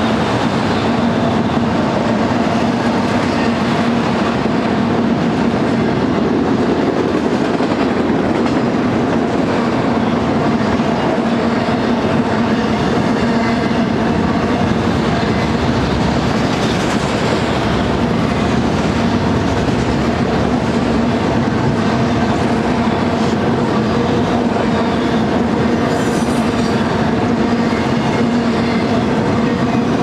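Freight train of enclosed autorack cars rolling steadily past: steel wheels running on the rails, with a steady hum under the rolling noise.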